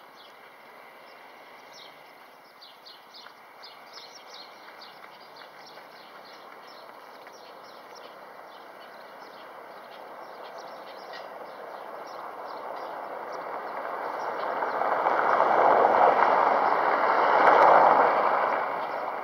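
A motor vehicle approaching and passing close by, its noise building over several seconds to a peak near the end and then falling away. Before it, a quick run of faint high chirps.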